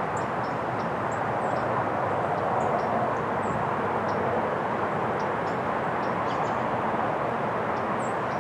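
Steady distant roar of outdoor background noise, with short high bird chirps scattered through it.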